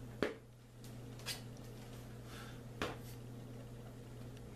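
A few short taps and handling noises as pancakes are set down and stacked on a plate, the loudest just after the start, over a steady low hum.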